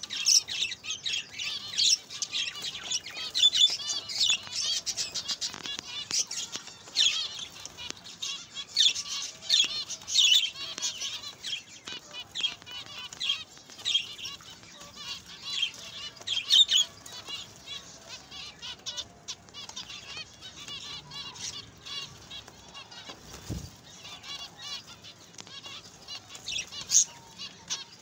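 A flock of zebra finches calling, many short high calls overlapping. The calling is busy for the first two-thirds, then thins out.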